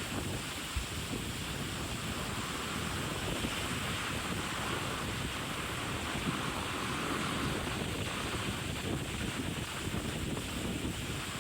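Wind buffeting the microphone over the steady rush of sea water past a ship under way on the open ocean.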